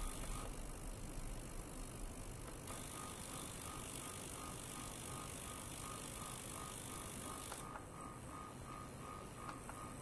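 A portable 40 kHz, 100 W ultrasonic cleaner running, heard as a tone pulsing about three times a second over hiss and a high whine. The whine drops out for about two seconds near the start and again near the end.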